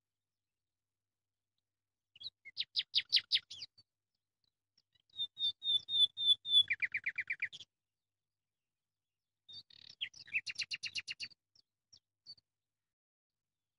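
A small songbird singing three short phrases of rapid trilled notes, each lasting one to two seconds, with pauses between them.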